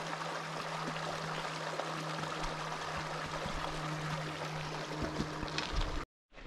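Steady rush of running water, with a low steady hum underneath; it cuts off abruptly about six seconds in.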